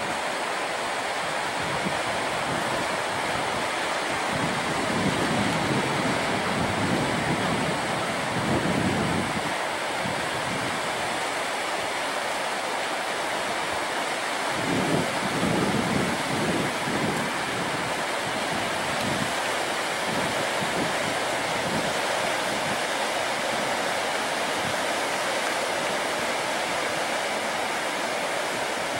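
Pacific Ocean surf washing steadily on a beach, with wind gusting against the microphone twice, about four seconds in and again around the middle.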